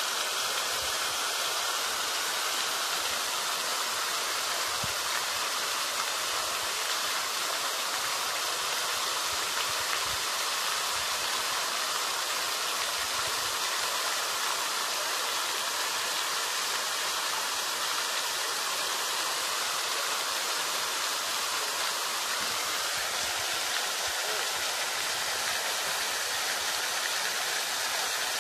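A steady, even hiss, like rushing water, unchanging throughout.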